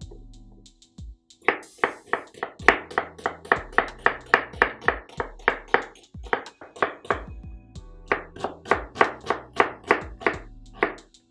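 Chef's knife chopping onions on a bamboo cutting board, quick regular knocks about four a second in two runs with a short pause just past the middle, over background music.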